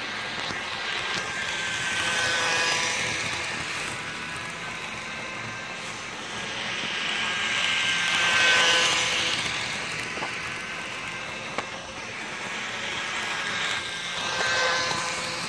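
HO scale model train running around an oval track: the locomotive's small electric motor hums and its wheels roll on the rails, growing louder three times, about six seconds apart, as it passes close by.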